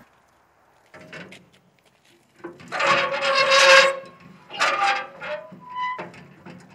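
Crank wheel of a Lone Star Grillz Santa Maria grill being turned in several pushes to raise or lower the grate, its metal crank and lift mechanism grinding and squeaking. The longest and loudest grind comes about three seconds in, and a short squeak sounds near the end.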